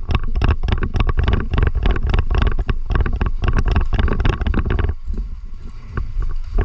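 Footsteps and gear rattling from a player running with a body-worn camera: a fast, irregular string of knocks over a heavy low rumble, easing off about five seconds in and picking up again near the end.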